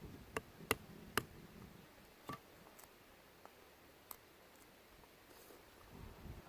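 Cashew nuts in their shells snapping and popping with irregular sharp clicks, about five of them in the first four seconds.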